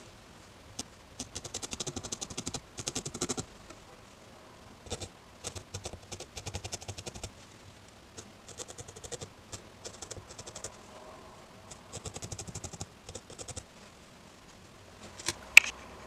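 Barbed felting needle jabbing rapidly into wool, attaching a needle-felted hedgehog's hand, in about four bursts of quick pokes with short pauses between. A single sharp click near the end.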